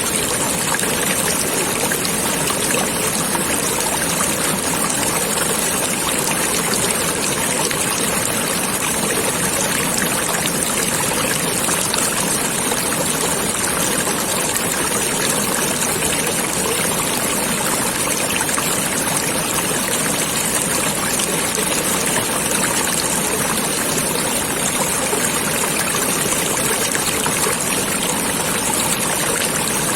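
Running stream water flowing steadily, an even rush and trickle.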